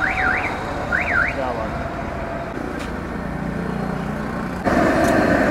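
A short electronic chirp that rises and falls twice, repeating about once a second, in the manner of a vehicle alarm, over steady street noise. The noise gets suddenly louder near the end.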